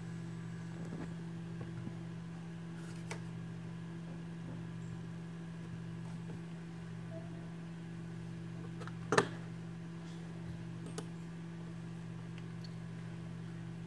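Steady low hum of a running computer, typical of its cooling fan, with one sharp click about nine seconds in and a few faint ticks.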